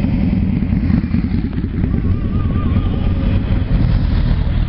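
Several motorcycles riding past close by in a column, their engines running with a loud, continuous low rumble.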